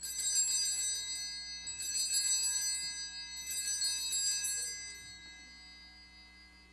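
Altar bells rung three times, about a second and a half apart, marking the elevation of the consecrated chalice. Each ring is a shimmer of high bell tones, and the last one fades away slowly.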